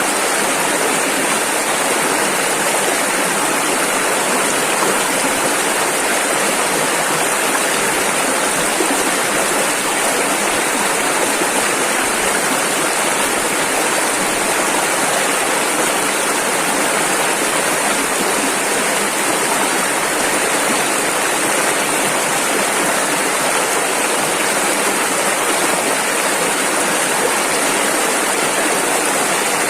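Rushing river water, a steady, unbroken churn of rapids.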